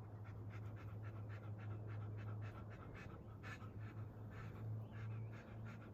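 A dog panting quickly, short breaths about three to four a second, over a steady low hum.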